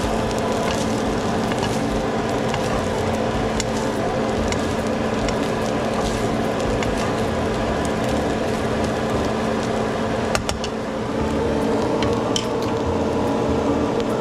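Flaked tuna sizzling as it fries in a nonstick pan while it is stirred and turned with spatulas. Scattered light clicks of the spatulas scraping the pan.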